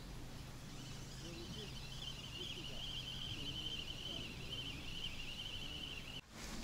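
Quiet outdoor ambience: a continuous high-pitched, wavering trill starts about a second in and stops near the end, over a low steady hum.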